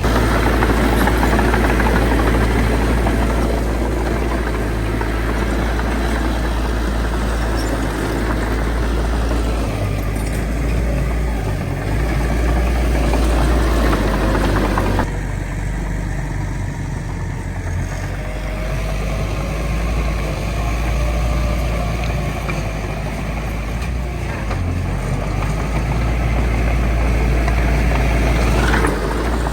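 Heavy diesel earthmoving machinery running steadily with a deep rumble, the sound of a bulldozer and dump trucks at work filling land. The sound changes abruptly about halfway through, becoming less harsh in the upper range.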